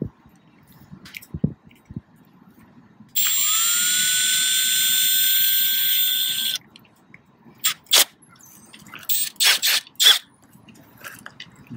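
Milwaukee M18 cordless drill running free, not drilling, for about three and a half seconds: a steady high whine that rises briefly as the motor spins up, then cuts off. Afterwards come several sharp clicks as the drill's chuck is worked by hand to fit a smaller bit.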